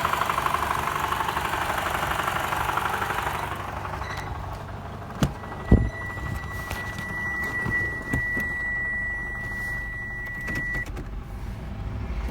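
Toyota Camry 2.5 four-cylinder engine idling warm under air-conditioning load, with a fast, even knocking rattle and vibration, put down to a faulty balance shaft assembly. About three and a half seconds in the knocking fades and the sound drops. Two sharp thumps follow, then a steady high tone that lasts several seconds.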